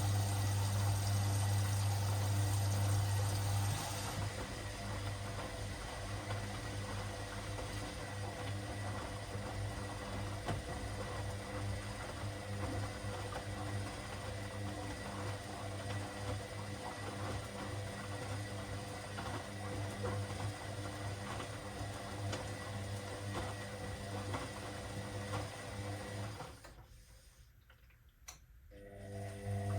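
Washing machine running with a steady motor hum and water churning in the drum. The hum drops about four seconds in, and near the end the machine goes almost quiet for a couple of seconds before the motor starts up again.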